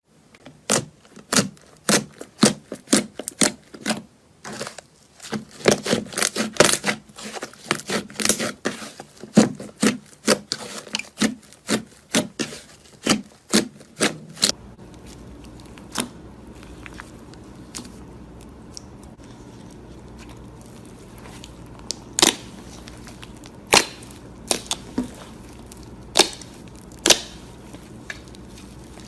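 Slime being pressed and poked, giving crisp clicks and pops in quick succession. About halfway through it changes abruptly to a steady low hum with only a few scattered pops.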